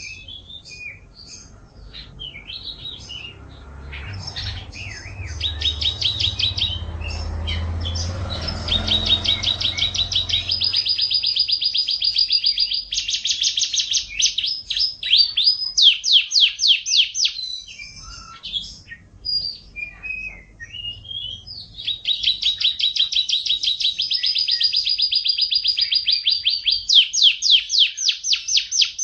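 A young domestic canary practising its song: long, fast rolling trills of rapidly repeated high notes, broken by short twittering phrases. A low rumble runs underneath for a few seconds early on.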